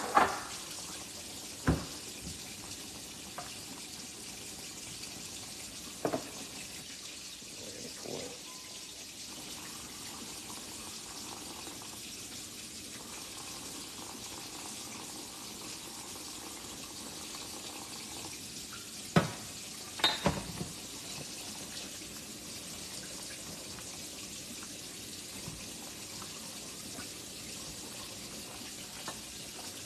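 Pot of creamy soup simmering on the stove with a steady hiss, broken by a few sharp clinks of a metal wire whisk against the stainless pot, the loudest pair about two-thirds of the way through.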